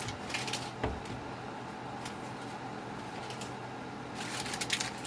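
Paper packet of dry onion soup mix crinkling as it is emptied into the pot, in two short spells of crackling, with a single knock about a second in, over a steady low hum.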